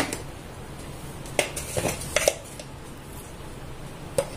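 Kitchen utensils clinking as spices are measured out with a spoon: five short, light clicks and taps spread across the few seconds.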